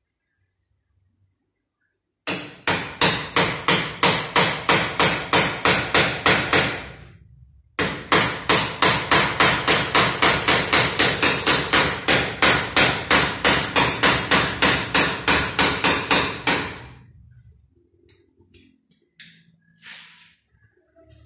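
Rapid, evenly spaced hammering, about three or four sharp blows a second, in two long runs with a short break between them.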